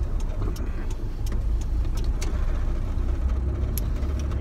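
Steady low rumble of a car's engine and road noise heard inside the cabin while driving, with a few faint clicks.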